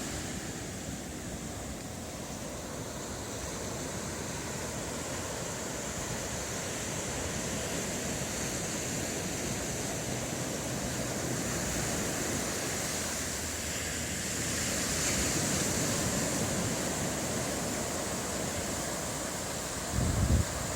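Pacific Ocean surf washing steadily onto the beach, swelling a little in the middle, with a few low thumps of wind on the microphone near the end.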